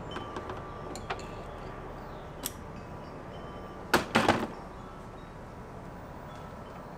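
A few light clicks and taps of tool work in a car's engine bay, then a short clatter of knocks about four seconds in as a cordless ratchet is set down on the front of the engine bay.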